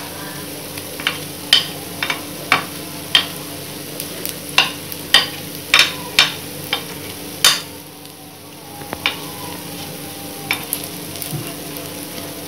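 Kuzhi paniyaram sizzling in oil in a multi-well paniyaram pan as a metal spoon turns the golden-brown balls. The spoon knocks against the pan in sharp clicks, roughly two a second, until about seven and a half seconds in, and after that only the sizzle goes on.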